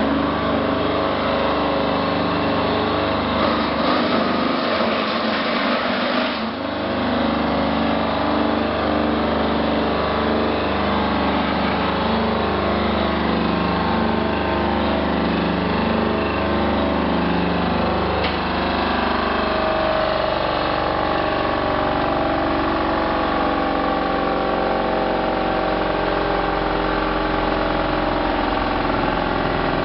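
Onion slicing machine running: a steady motor drone whose pitch wavers slightly, with a rougher rattling noise for a few seconds near the start.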